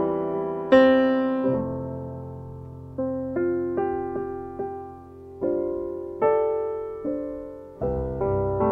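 Slow piano music: chords and single notes struck and left to fade, a new one about every second.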